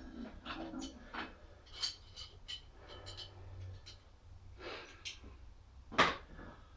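Iron weight plates and a grip handle on a loading pin being handled: scattered metallic clinks and knocks, with one loud clank about six seconds in.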